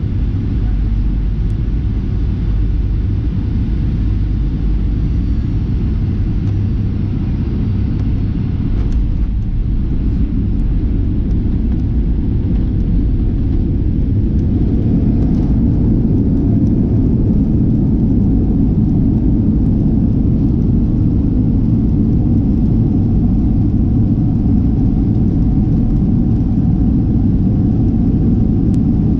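Boeing 737-800 jet engine and airflow noise heard in the passenger cabin: a loud, steady low rumble. About halfway through it grows louder and a steady tone joins it.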